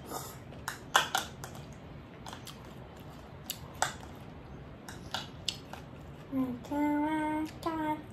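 Sharp, scattered clicks and scrapes of a spoon against a small plastic cup, with light eating sounds. From about six seconds in, a voice hums two held notes.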